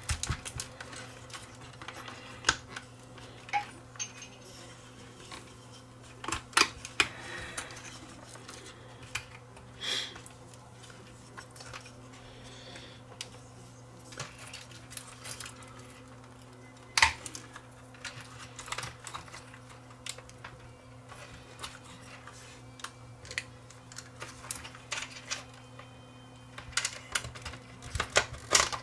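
Scattered clicks, taps and clinks of hands working inside an amplifier chassis: a screwdriver backing out screws, with screws, boards and parts being handled. A steady low hum runs underneath.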